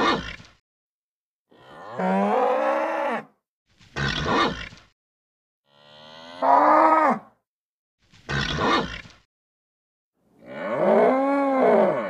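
A bull bellowing. Three long calls, each rising and then falling in pitch, alternate with three short, harsh calls, one about every two seconds.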